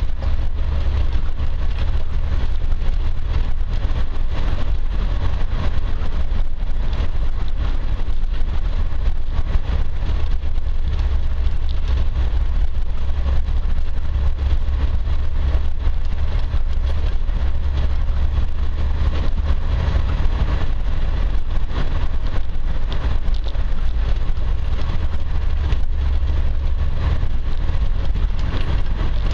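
Land Rover driving along a rough gravel green lane: a steady low engine drone mixed with tyre and stone noise, holding even throughout.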